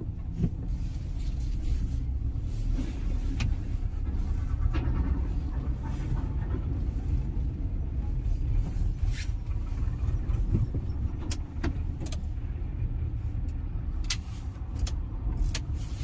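Car engine and tyre rumble heard from inside the cabin as the car creeps along at low speed. Scattered light clicks and knocks come through in the second half.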